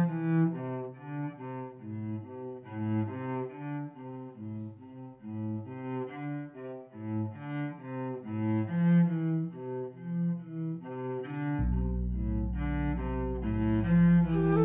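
Instrumental film music: a slow melody of separate low notes, about two a second, joined by a steady low drone near the end.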